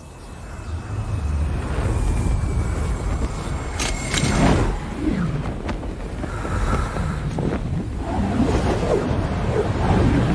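Solar surfer's jet engine running with rushing wind, swelling up about a second in, with a couple of sweeping whooshes as it passes close near the middle.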